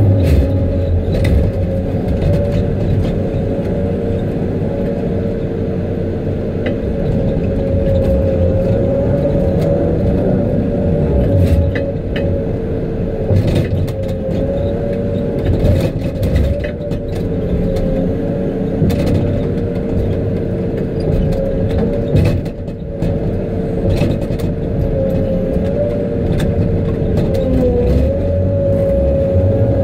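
Diesel engine and hydraulics of a knuckleboom log loader running steadily under load, heard from the operator's cab, with a steady whine over the rumble. Short knocks come here and there as the grapple handles the logs.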